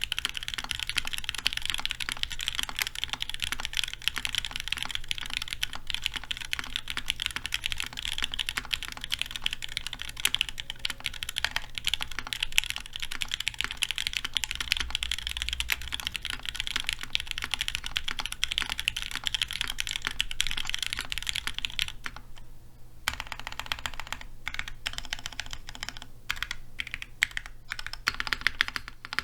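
Custom mechanical keyboard with lubed SP Star Meteor White switches in an O-ring-mounted aluminium plate and GMK keycaps, typed on fast and continuously. About three quarters of the way through there is a short pause, followed by slower, separate key presses.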